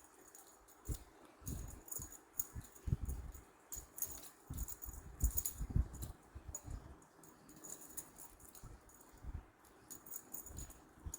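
A cat at play: irregular soft thumps with light rattling, jingling clicks, several a second at times, busiest in the first half.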